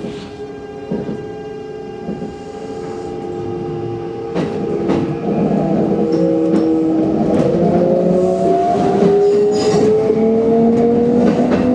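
Kintetsu electric train's traction motors whining, the whine rising steadily in pitch and growing louder as the train accelerates away from a station stop. Wheels clack at irregular intervals over the points and rail joints, heard from inside the front of the train.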